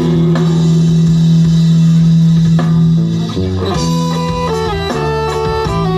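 Instrumental break of a rock band: guitar, bass guitar and drum kit. A long held chord gives way, about three and a half seconds in, to a stepping electric guitar lead line.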